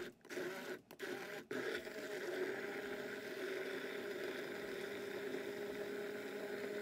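Sencor hand-held stick blender pureeing fresh aloe vera gel in a glass measuring jug: a few short start-stop pulses in the first second and a half, then running steadily with an even motor hum.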